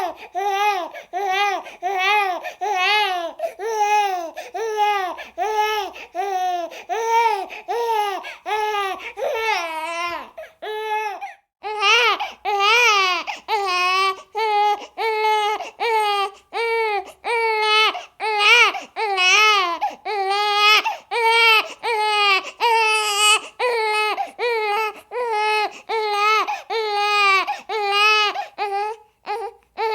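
Baby crying hard in short, high-pitched wailing cries, about two a second, with a brief break about eleven seconds in and another near the end.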